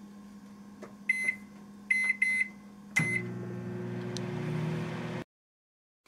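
A 700-watt microwave oven's keypad beeping four times as the time is set, then the oven starting up and running with a steady hum that cuts off suddenly about five seconds in.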